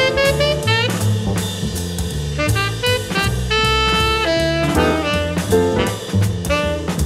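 Jazz music: a saxophone playing quick runs and some held notes over a drum kit and a low bass line.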